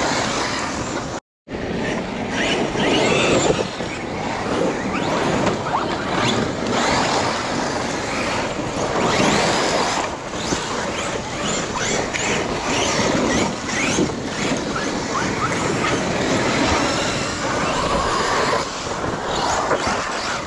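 Large electric RC cars' brushless motors whining up and down in pitch as they accelerate and brake, over the noise of tyres on loose forest ground.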